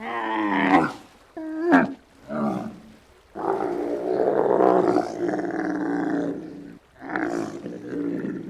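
Giraffe calls: a few short pitched calls, then one long rough call lasting about three seconds, and another shorter call near the end.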